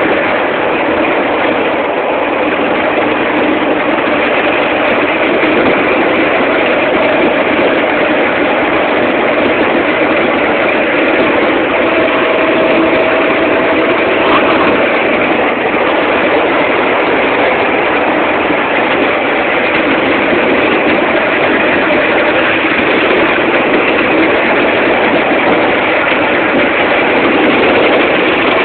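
A small engine running steadily, heard close up from on board the small ride vehicle it drives, with a faint held engine tone.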